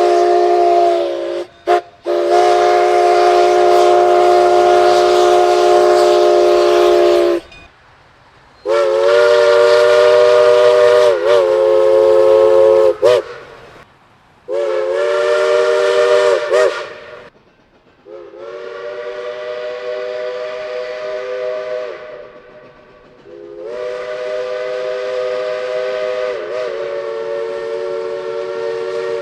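Multi-chime steam locomotive whistle blown in about six long blasts with short breaks between them. Its chord of several tones dips and wavers in pitch within several of the blasts.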